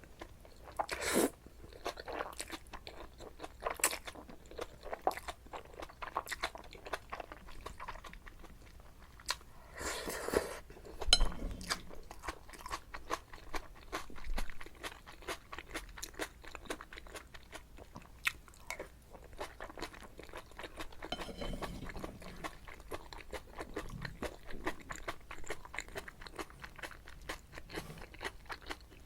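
Close-miked mouth sounds of eating jajangmyeon: steady chewing and biting with many quick wet clicks, a louder stretch about ten seconds in.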